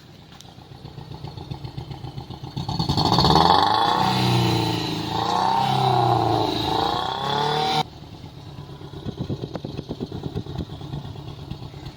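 Toyota Corolla XLI's 2NZ four-cylinder engine running rough at the exhaust with an uneven, stumbling beat. About three seconds in it is revved up and down for several seconds before dropping back to the rough idle. The misfire comes from a blown head gasket letting cylinder 3's pressure leak into cylinder 4.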